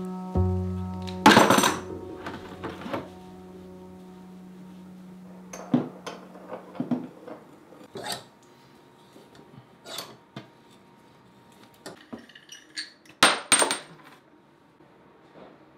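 Sharp metal clinks and taps of plumbing hand tools, a wrench and a compression sleeve puller, working on a water supply stub-out, coming at irregular intervals with the loudest pair near the end. Background music with held notes plays under the first few seconds.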